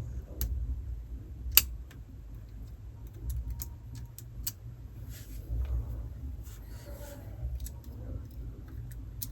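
Scattered light clicks and taps of a magnetised screwdriver and small metal screws being backed out of a laptop screen hinge, with one sharp click about a second and a half in, over low handling noise.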